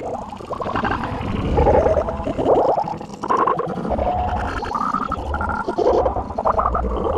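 Heavily effects-processed cartoon logo audio: a distorted, warbling, gurgling jumble of short sounds over a constant deep rumble.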